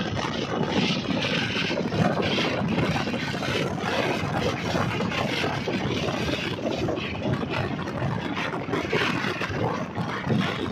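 Steady road, engine and wind noise of a moving vehicle driving at speed.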